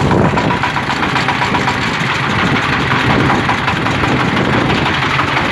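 Toyama 30 hp diesel engine of a homemade farm cart idling steadily.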